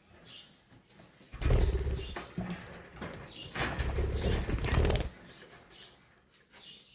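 Birds, with a few short high calls and two loud bursts of rustling, the first about a second and a half in, the second lasting about a second and a half near the middle.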